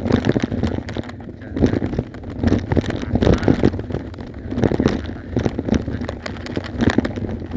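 Bicycle rattling and jolting over a bumpy dirt track, with irregular bursts of knocks every second or so, and wind on the microphone.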